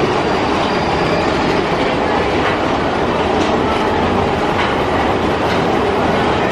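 Big Thunder Mountain Railroad mine-train roller coaster running along its track: a steady loud rumble with a few faint clacks in the middle.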